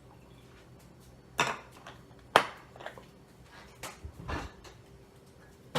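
Kitchen containers and utensils being handled on a counter: a few separate sharp knocks and clunks, the loudest about two and a half seconds in, with a duller thud a little after four seconds.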